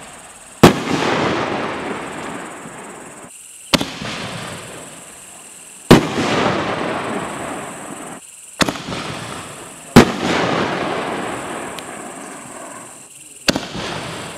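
Reloadable aerial firework shells fired one after another from mortar tubes. Each gives a launch thump, then about two seconds later a louder bang as the shell bursts, followed by a spread of sound that fades over two or three seconds. Three bursts are heard, and the last launch comes near the end.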